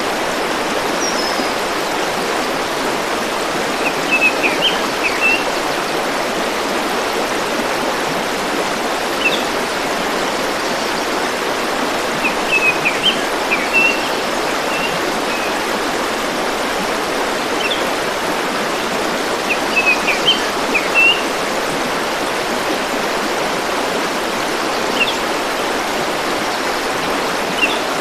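A forest stream flowing with a steady rushing sound, while a small bird calls in short bursts of high chirps every few seconds.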